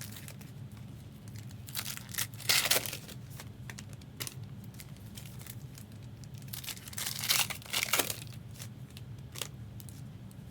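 Foil trading-card pack wrappers being torn open and crinkled, in two bursts about two seconds in and again about seven seconds in, over a steady low hum.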